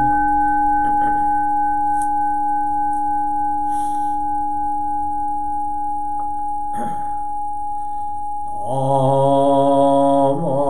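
Buddhist temple bowl bell (kin) ringing out after a mallet strike, a steady hum of several tones slowly fading, the highest dying away about six seconds in. A man's chanting voice starts again about nine seconds in, over the last of the ring.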